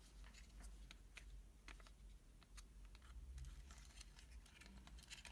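Faint, irregular light clicks and ticks of small plastic parts and wiring being handled inside an opened RC car transmitter, over a low hum.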